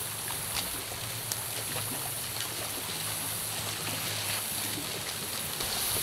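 Catfish pieces, just added, sizzling in hot peanut oil in a cast iron skillet: a steady hiss with scattered small pops.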